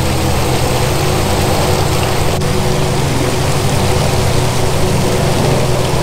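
Steady rushing water, an even loud wash of noise that does not change, with low held tones underneath.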